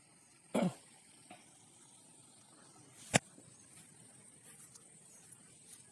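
A person's short cough about half a second in, then a single sharp click, the loudest sound, about three seconds in, over a faint steady hiss.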